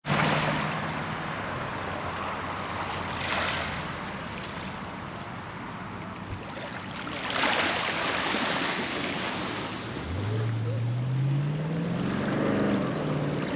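Small waves washing on a shore, swelling and easing every few seconds. About ten seconds in, an engine's note comes in and rises in pitch.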